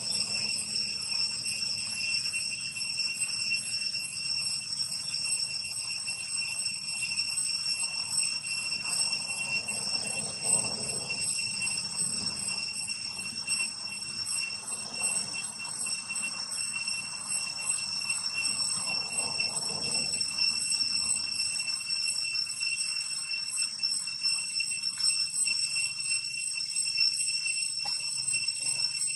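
A steady, high-pitched insect drone, a chorus of calling insects, holding one ringing pitch without a break.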